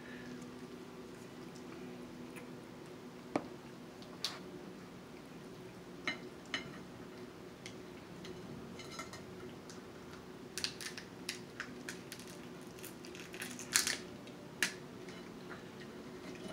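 Snow crab leg shells being cracked and snapped open by hand, a scatter of sharp cracks and clicks that come thickest in the second half, over a faint steady hum.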